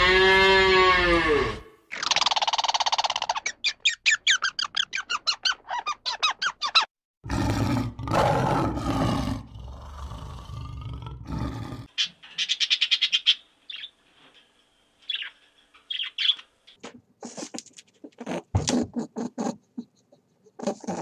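Cow mooing once, a call that rises and falls in pitch, followed by a string of other animal calls: fast repeated high-pitched calls, a rough growl about seven seconds in, and short high squeaks and chirps through the last half.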